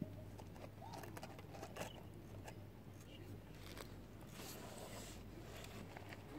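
Faint ambience: scattered small clicks and rustles close to the microphone over a low steady hum, with a few faint short calls in the distance.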